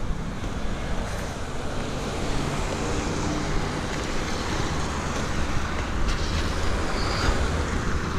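Road traffic passing through an intersection: vehicles driving by with a steady, continuous noise.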